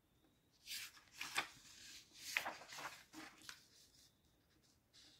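Sheets of paper rustling and sliding in a few short bursts: a written-on sheet is taken away and a fresh blank sheet laid down on the table.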